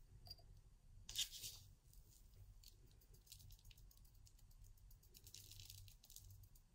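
Fingers gently patting fake snow onto a small glass jar wet with Mod Podge: faint crunchy rustles, a slightly louder one about a second in, then scattered light ticks, over a low steady hum.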